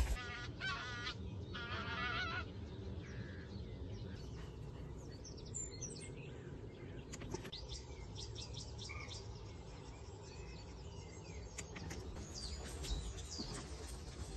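Two wavering, honk-like calls near the start, then scattered faint chirps of small birds singing over a steady background hiss.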